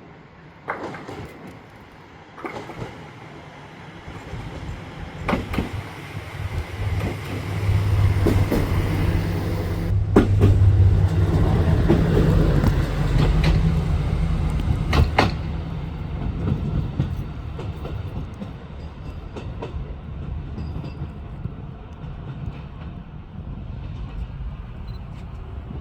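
BE220 BIGEYE track inspection car's diesel engine running as the car moves past and draws away, its wheels clacking over rail joints several times. The sound builds to its loudest about halfway through, then fades.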